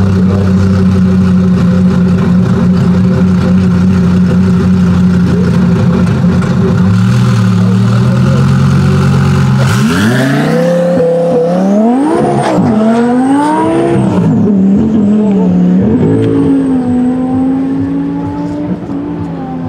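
Twin-turbo V10 of a modified 1050 hp Audi R8 GT running at the start line, its revs stepping up about seven seconds in. About ten seconds in it launches and accelerates hard away, the pitch climbing and dropping at three upshifts, then fading as the car pulls away.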